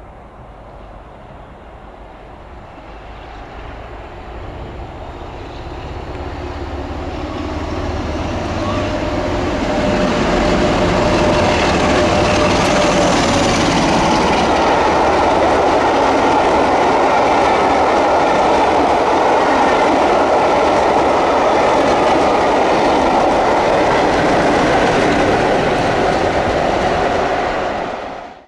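West Coast Railways Class 47 diesel locomotive and its train of coaches approaching and passing close by. The sound grows over about ten seconds into a loud, steady running noise of engine and wheels on rail, then cuts off abruptly near the end.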